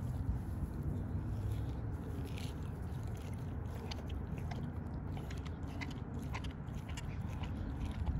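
American bully puppy chewing and biting into a raw whole chicken, with irregular sharp crunches as it works through the bone.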